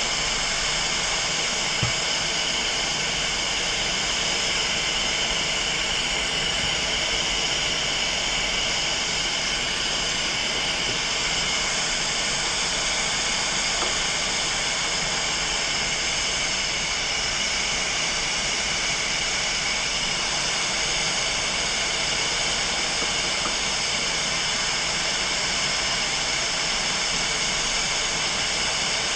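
Hot air rework station blowing a steady hiss of air at 90% airflow, heating a thick circuit board to melt the solder of a port so it can be pulled off.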